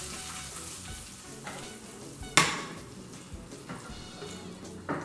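Hot garlic and oil sizzling in a frying pan as it is tipped and scraped out over a food processor. The sizzle fades, and about two and a half seconds in there is one sharp metal clank, the pan being set down on the stove.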